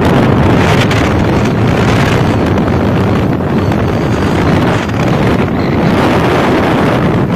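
Heavy, steady wind rush buffeting the microphone while riding a motorcycle at road speed, with vehicle noise beneath.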